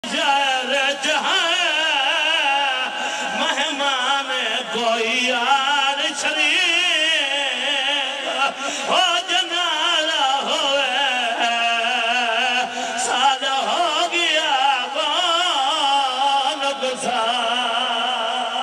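A man's voice chanting a mourning elegy into a microphone over a loudspeaker system, in a melismatic style: each note wavers in quick ornamental trills. It ends on a long held note.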